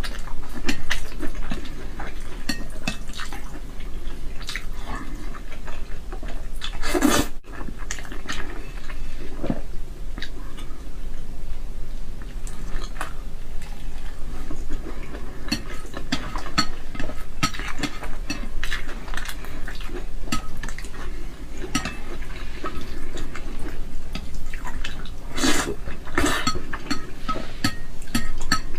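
Close-miked eating of spicy instant noodles: wet slurping and chewing, with wooden chopsticks repeatedly clicking and scraping against the ceramic plate.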